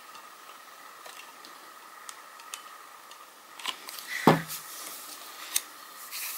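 Paper being handled while a side pocket of a paper mini album is glued and pressed shut: soft rustles and scattered small clicks, busier and louder from about halfway, with one brief louder sound a little after that. A faint steady hum sits underneath.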